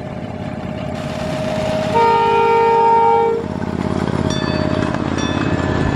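A train horn sounds one blast of about a second and a half over the steady rumble of a running rail vehicle. Thin, high-pitched squeals come and go near the end.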